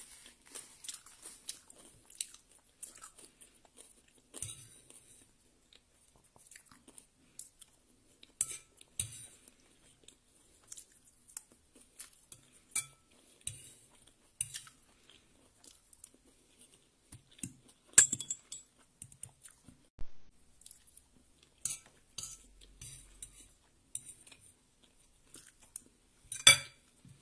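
Close-up chewing and crunching of fried rice and crispy fried fish, with irregular short clicks of a utensil against a ceramic plate. One sharp click comes about two-thirds of the way through, and a louder crunch cluster comes near the end.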